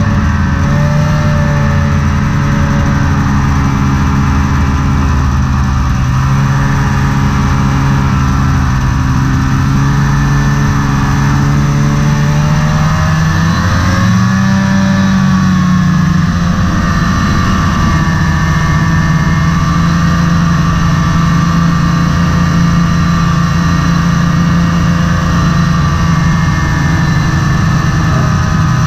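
Snowmobile engine running steadily under way, heard on board the moving sled. Its pitch rises about halfway through and then holds steady at the higher speed.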